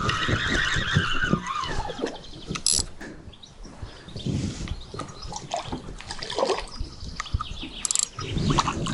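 Fishing reel worked while a hooked carp is played: the drag whines as the fish pulls line off, sliding down in pitch over the first second or so, then scattered clicks and knocks from the reel and handling as line is wound in.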